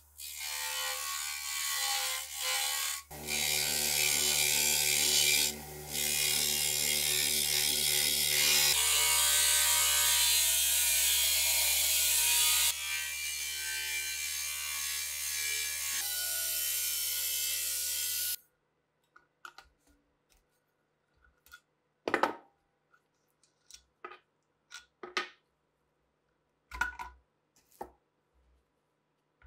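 Electric polishing motor running with a steady hum while a brass pan is pressed against its spinning buffing wheel, a loud rasping hiss of the wheel on the metal that grows louder about three seconds in and stops abruptly a little past halfway. Then scattered short clicks and knocks as the motor's spindle and wheel are handled.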